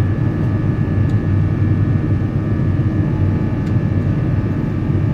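Steady cabin noise inside an Airbus A350-900, its Rolls-Royce Trent XWB engines and airflow making a deep, even rumble with a faint steady whine above it.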